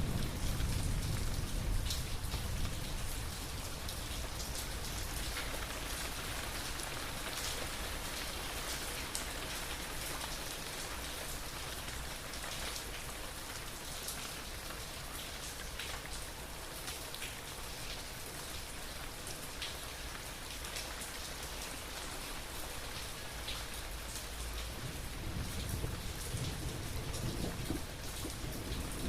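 Steady rain falling, with many separate drops ticking over an even hiss. A low roll of thunder dies away over the first few seconds, and another low rumble of thunder begins to build near the end.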